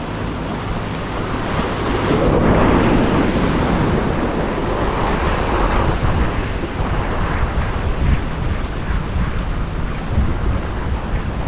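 Sea waves washing and splashing against the boulders of a rock breakwater, with wind buffeting the microphone. The surf swells louder about two seconds in and again around five to six seconds.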